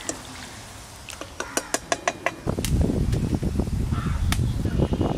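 A run of sharp clicking taps, then from about two and a half seconds in a loud, low, rumbling clatter: a wooden rolling pin rolling out luchi dough on a wooden board.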